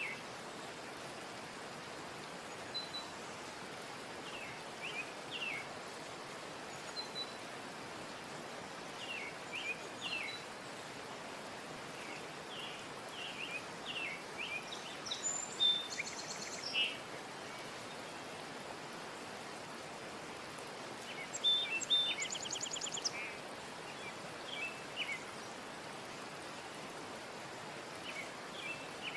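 Small birds chirping over a steady background hiss, with short calls scattered throughout and two brief rapid trills, one just past the middle and another a few seconds later.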